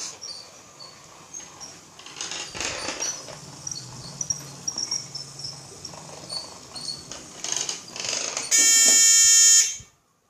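Piezo buzzer on the model train's Arduino control unit sounding one loud, steady buzz for about a second near the end. Before it there are faint scattered high chirps and a low hum.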